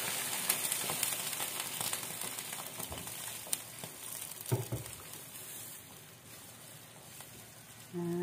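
Water sizzling in a hot non-stick wok over spices and fish pieces just after a splash of water is poured in, the sizzle dying down as the pan cools. A plastic spatula knocks against the pan a few times while stirring, and a short pitched tone is heard near the end.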